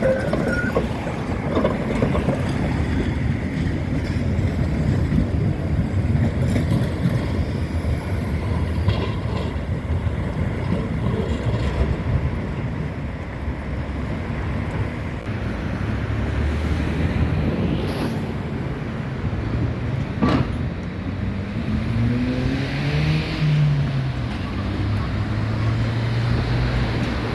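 A rail vehicle running past with a steady low rumble, joined late on by an electric motor whine that rises and falls in pitch. One sharp click stands out shortly before the whine.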